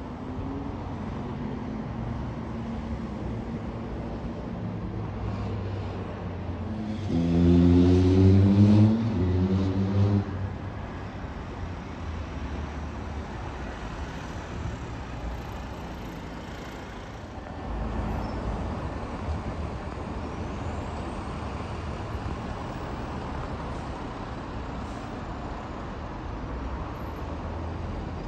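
Diesel single-deck buses running at a junction against steady road traffic. About seven seconds in, a bus engine grows loud and climbs in pitch as it pulls away, then fades back into the traffic. Another vehicle swells in a little past halfway.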